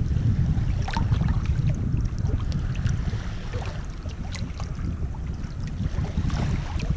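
Small waves lapping in shallow water over a pebbly shore, with scattered little splashes. A steady low rumble of wind buffets the microphone.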